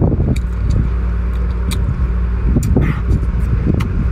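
A steady low engine drone, with several short sharp clicks and cracks over it.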